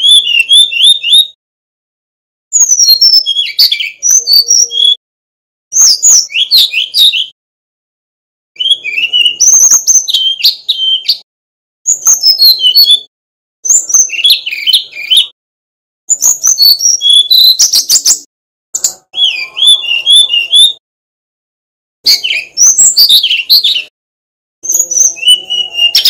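Male brown-chested jungle flycatcher singing in a cage: loud, rapid, fluty warbling phrases of one to two seconds each, about ten of them, separated by short pauses.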